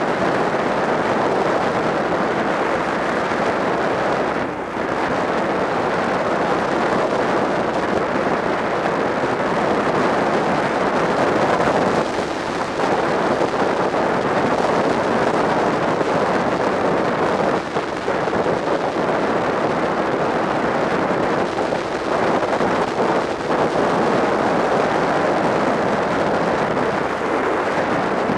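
Wind rushing steadily over the microphone of a motorcycle at road speed, with the bike's engine running beneath it. The rush dips briefly a few times.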